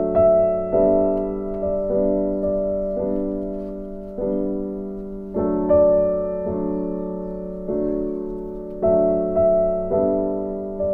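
Background piano music: gentle chords struck about once a second, each ringing and fading before the next.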